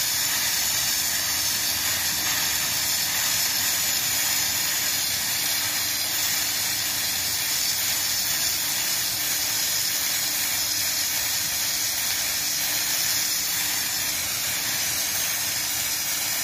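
Sandblasting nozzle on a compressed-air hose blasting abrasive grit against a ship's steel hull: a loud, steady, unbroken hiss.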